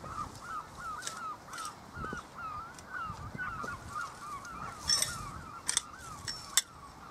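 Birds calling: a steady string of short, rising-and-falling calls, several each second, overlapping as from a flock. A few sharp clicks come through, the loudest about five and six and a half seconds in.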